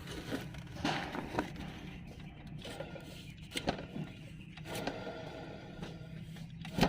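Alternator on a 2017 Toyota Fortuner's running 2GD diesel engine giving a steady low hum, which the mechanic suspects comes from worn bearings inside it. A few clicks or knocks sound over it, the loudest near the end.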